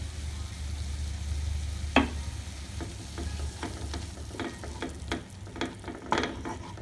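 Spoon or spatula scraping and clicking in a frying pan as liver, onion and capsicum are stirred over a light sizzle, with one sharp knock about two seconds in and a run of quick scrapes and clicks in the second half. A steady low hum sits underneath.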